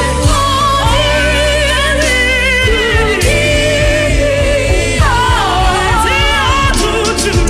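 Gospel worship song: a singer holds long notes with a wavering vibrato and slides between pitches, over a band with steady bass and a regular drum beat.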